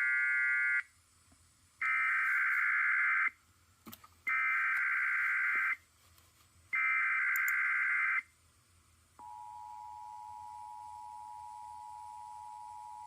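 Emergency Alert System broadcast activation: four bursts of the buzzing SAME digital header data tones, each about a second to a second and a half long. About nine seconds in, the steady two-tone EAS attention signal starts and holds.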